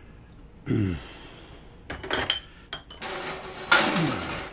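Handling noise from home-brewing gear: a few sharp clinks and knocks about two seconds in, then a longer scraping rush near the end, with a short falling tone about a second in.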